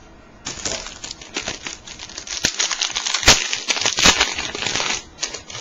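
A foil trading-card pack being torn open and its wrapper crinkled and handled, with two sharp snaps in the second half.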